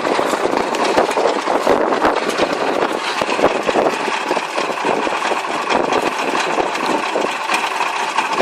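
Combine harvester's engine running steadily, with a dense mechanical clatter over it.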